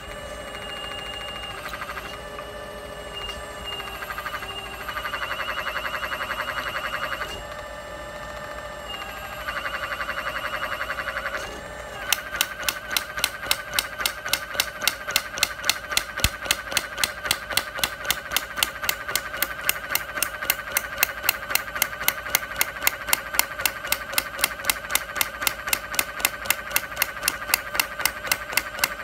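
Small hydraulic breaker with a chisel bit hammering on a brick. For the first dozen seconds a steady machine whine dominates, rising and falling in level, and then the breaker settles into sharp, even blows about three a second over the whine.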